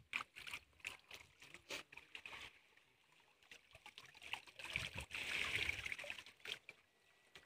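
Shallow pond water splashing and trickling as a seine net is hauled in and gathered by hand. Short separate splashes at first, growing busier for a couple of seconds past the middle.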